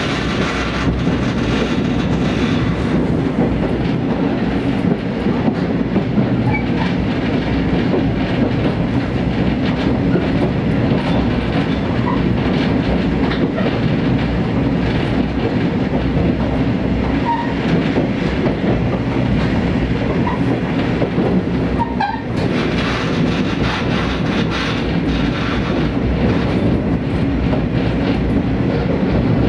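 Diesel railcar running along the line, heard from aboard: a steady rumble of engine and wheels on the rails, with a single sharp click about three-quarters of the way through.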